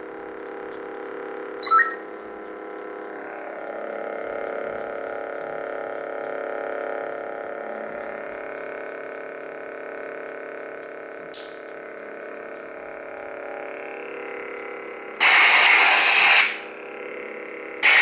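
Lightsaber sound board (CFX) playing its steady electronic idle hum, with a short blip about two seconds in and two loud, hissing effect sounds near the end, the first lasting over a second.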